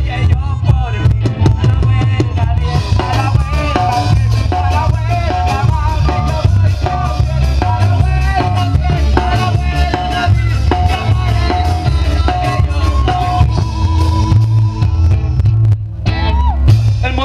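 Live rock band playing loud through a PA, with electric guitars and a drum kit over a heavy low end and a held melody line. There is a short break in the sound near the end.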